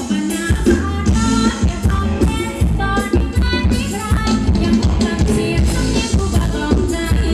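Amplified Thai luk thung dance music from a band, with singing and a steady drum beat.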